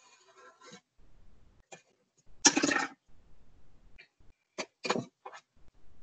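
Marker pen drawing on a plastic milk jug: a series of short strokes, the longest and loudest about halfway through, then a quick run of three or four strokes near the end.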